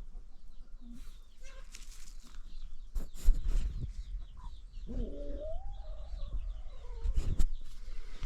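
Chickens calling, with one long call about five seconds in that rises and then falls in pitch. Small birds chirp faintly throughout, and there are dull knocks about three and seven seconds in.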